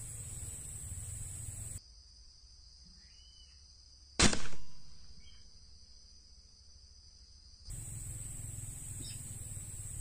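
A single air-rifle shot about four seconds in: one sharp crack with a short tail. Steady high insect buzzing continues around it.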